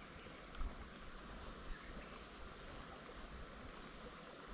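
Faint creekside bush ambience: insects and birds calling softly over a low rumble, with a light tap about half a second in.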